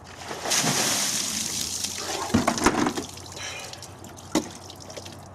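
A plastic tub of ice water dumped over a person, the water splashing down onto him and the ground for about two and a half seconds before trailing off. A sharp knock sounds about four seconds in.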